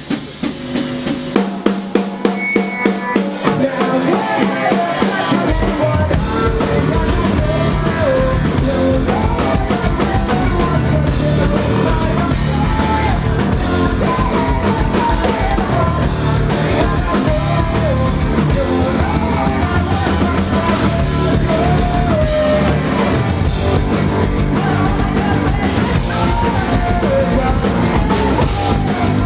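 Rock band playing live. It opens with drum hits, then bass and the full band come in about six seconds in, with a wavering melody line on top.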